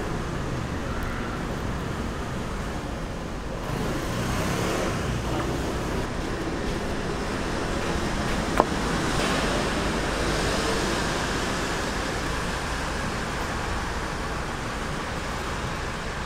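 Steady street traffic noise, swelling as vehicles pass a few seconds in and again just after the middle. A single sharp click sounds a little past the middle.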